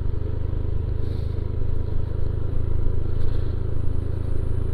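Honda Beat automatic scooter riding downhill over a broken, potholed road: a steady low rumble of engine, wind and road noise.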